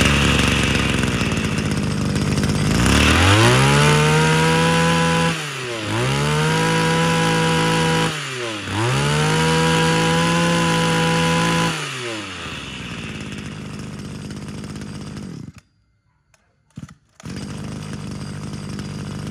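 Small Japanese two-stroke brush cutter engine running and revved three times with the throttle, each rise in pitch held for a couple of seconds and then dropping back to idle. About three-quarters of the way through it is switched off. After a second or so it is restarted warm with a light pull of the recoil starter, without priming or choke.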